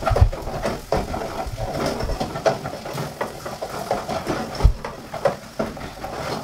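Wooden spoon stirring beef mince filling in a metal pot, with irregular scrapes and knocks of the spoon against the pot over the sizzle of the frying meat.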